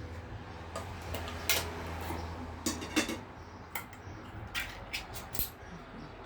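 Irregular clinks and scrapes of a utensil against a tuna can and a salad bowl while tuna is added to a pasta salad.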